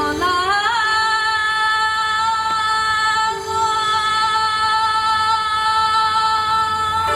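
A woman singing Tibetan devotional music. Her voice slides up in the first second, then holds one long note with a slight waver, over a lower held tone.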